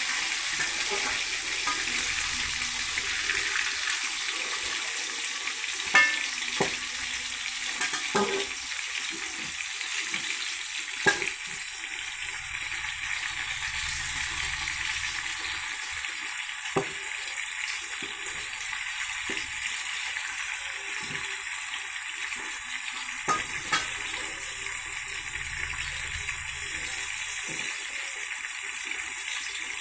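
Chicken pieces and tofu deep-frying in hot oil in a wok: a steady sizzling hiss, with a few sharp clicks now and then.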